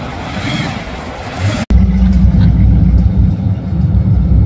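Street traffic with a car on the road, then an abrupt cut to a loud, steady low rumble, typical of a car engine or of wind on the microphone.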